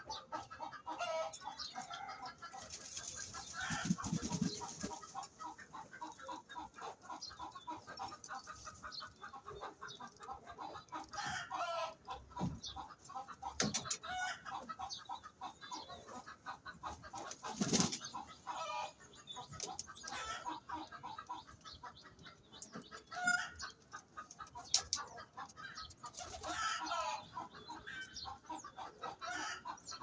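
A flock of domestic pigeons calling continuously in a loft, a steady run of short, overlapping coos and clucking notes.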